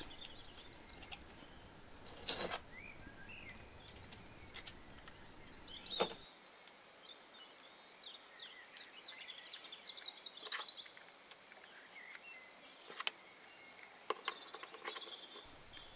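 Faint scattered clicks and light taps of small aluminium parts being handled, as flat blade plates are slid into the slotted square-bar arms of a model Baker fan.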